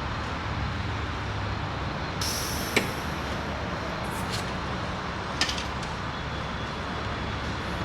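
Steady background hum with a few sharp clicks of small metal parts being handled, about three seconds in and again around five seconds, as a truck door latch and lock rod are being refitted.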